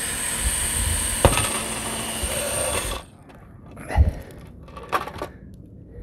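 Cordless drill running steadily for about three seconds as it bores a small pilot hole into the shingled roof, then stopping suddenly. A few knocks and handling sounds follow as the plastic junction box is lifted off the roof.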